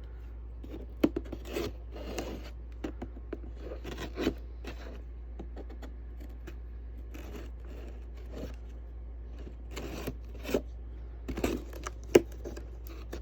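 Cardboard box and packaging being handled and opened: scattered scrapes, rustles and short clicks, with the sharpest click near the end.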